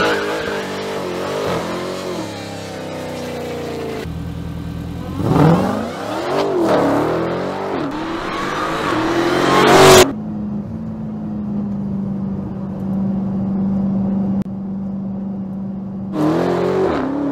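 Dodge Challenger SRT Demon's supercharged V8 revving hard. The pitch falls at the start, then climbs in a series of revs that cut off suddenly about ten seconds in. A steady engine drone follows for several seconds, and there is another rev near the end.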